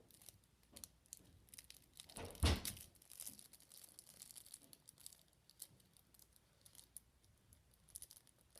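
The packaging of a Pokémon World Championships deck being torn and crinkled by hand as it is forced open. It is a run of small, sharp crackles, with one louder rip and bump about two and a half seconds in.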